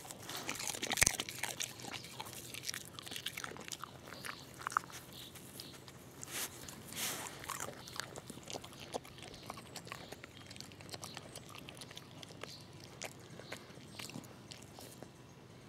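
A dog crunching and chewing peanuts in the shell, cracking the shells open with its teeth: irregular crunches, loudest about a second in and growing sparser toward the end.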